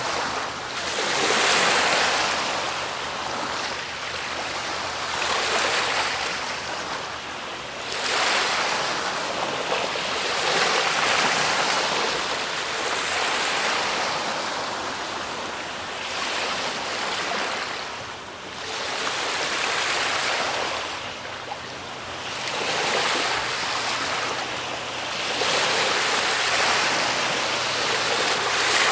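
Waves washing in one after another, a rush of surf that swells and falls away every three to four seconds.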